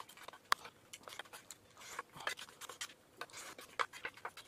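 Wooden spoon scraping and clicking against the inside of a metal noodle pot, scooping up the last of the noodles and rice. Quick, irregular scrapes and taps.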